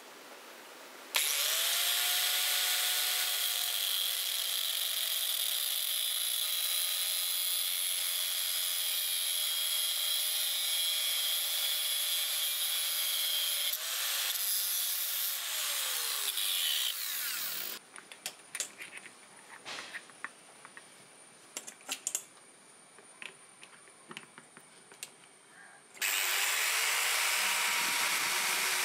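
Angle grinder with a thin cutoff disc cutting a metal rod clamped in a vise. It starts about a second in and runs steadily for some twelve seconds, its pitch sagging slightly under load, then runs briefly again and winds down. Scattered clicks and taps follow, and near the end the grinder runs steadily again, grinding a rod spun in a drill chuck.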